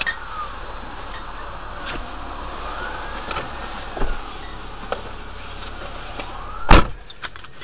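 Car driving on a wet road, heard from inside the cabin: steady road and engine noise with a faint high whine and a few light knocks, then one loud sharp bang about three-quarters of the way through.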